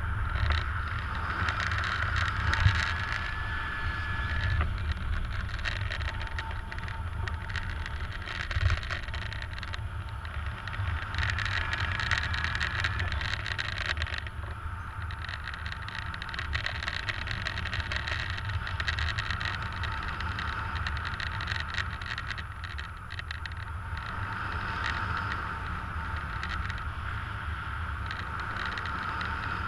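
Wind rushing over the camera microphone of a paraglider in flight, a steady rush with low buffeting rumble.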